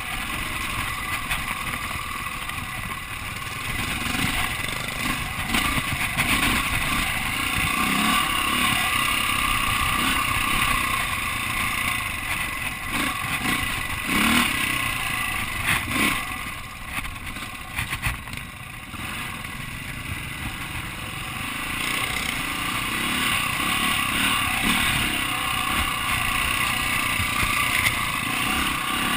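Dirt bike engine running under the rider, revving up and down over rough trail. It eases off to a quieter stretch about midway, then picks up again.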